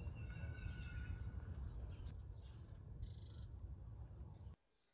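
Small birds chirping and calling, short high chirps and a few brief whistled notes, over a steady low rumble; the sound cuts off suddenly near the end.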